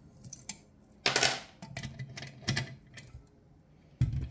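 Metal clinks and knocks of hardware being handled, with a sharp metallic clatter about a second in, a run of lighter clicks after it, and a dull thump near the end.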